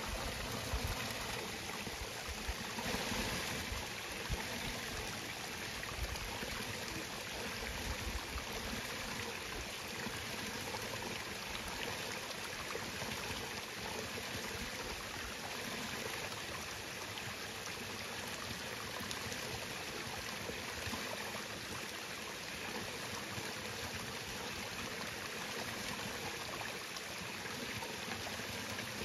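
Steady rush of flowing water from a nearby stream, with a few faint low knocks in the first few seconds.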